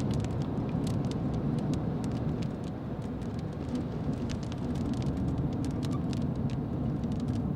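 Car on the move, heard from inside the cabin: a steady low road and engine rumble with scattered sharp ticks over it.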